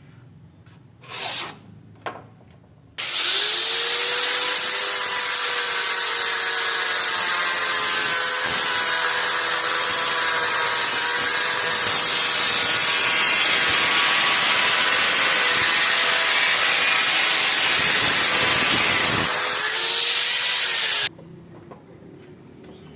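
Electric power tool running for about eighteen seconds, its motor whine rising as it starts about three seconds in and falling as it winds down before it stops suddenly near the end.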